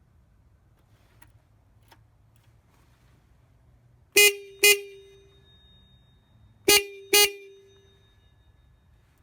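Scooter horn sounding two quick double toots, beep-beep then beep-beep, each with a short ringing tail, on a 1985 Honda Elite 250.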